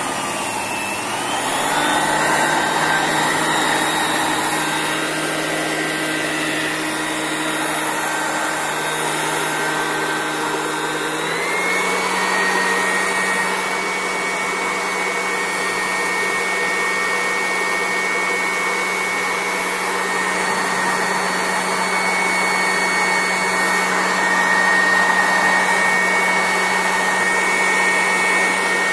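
Polymake 400 W electric hand blower running continuously, its motor giving a steady high whine over a rush of air. The pitch wavers in the first two seconds and steps up slightly about eleven seconds in.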